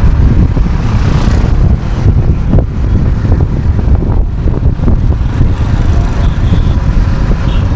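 Wind buffeting the action camera's built-in microphone while riding a motorcycle, a loud, steady low rumble with the bike's engine and road noise underneath.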